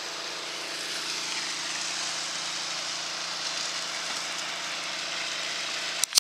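Small gasoline engine of a prospecting water pump running steadily at constant speed, with a hiss over its hum. It cuts off abruptly with a sharp click near the end.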